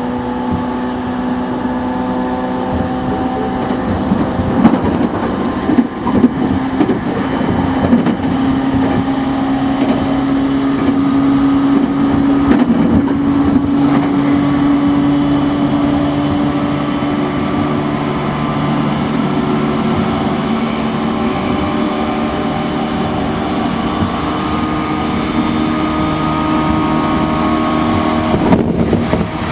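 E231-1000 series electric train running at speed, heard from inside the car: the MT73 traction motors and gearing whine loudly with several steady tones that drift slightly in pitch, over rail noise with a few sharp knocks a few seconds in.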